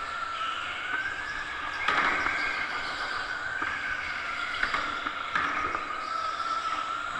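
Electric go-kart's motor whining, its pitch rising and falling with speed, with a few sharp knocks along the way.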